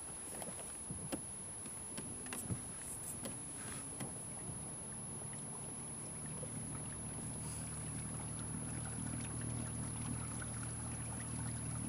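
Water moving along the hull of a Hobie Pro Angler kayak as it glides over flat water, with a few light knocks and clicks in the first few seconds. A low steady hum builds through the second half.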